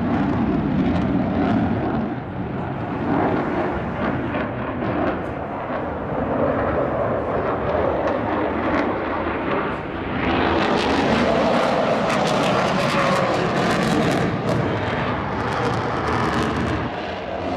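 Four radial engines of a B-17 Flying Fortress running loud as the bomber flies over. The sound turns harsher and crackly from about ten seconds in.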